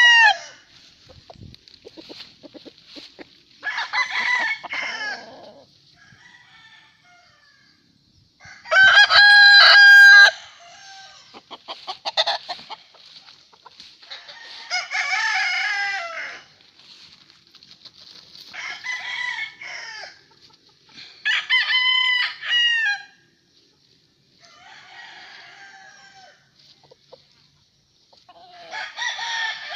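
Gamefowl roosters crowing in turn, about seven crows of one to two seconds each, spaced a few seconds apart, the loudest about nine seconds in.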